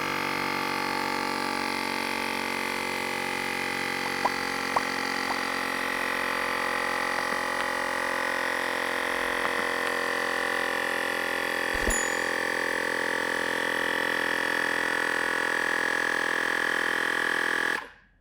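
Xiaomi second-generation portable digital air compressor running steadily as it pumps up a scooter tyre, a motor buzz with a high whine and a few small clicks. It cuts off suddenly near the end, having reached its preset 48 psi.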